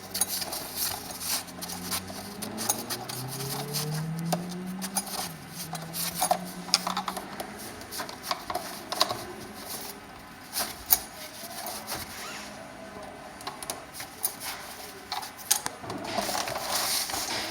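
Hand work on a mobility scooter's seat back as its bottom screws are taken out: scattered clicks and metallic taps of the tool and parts, with a low hum rising in pitch for a few seconds near the start.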